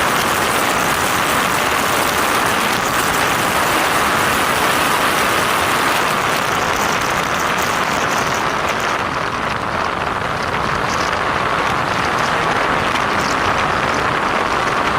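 Steady rush of wind and road noise while riding the Honda ADV 160 scooter on a test drive, with no separate engine note standing out.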